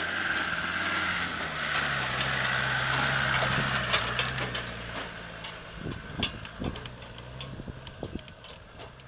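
Land Rover Defender's engine running as it drives past through soft sand, loudest in the first few seconds, then fading as it moves away. Scattered light clicks are heard in the second half.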